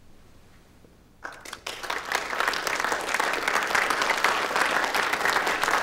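Audience applause, breaking out about a second in after a short hush and quickly building to steady clapping from many hands.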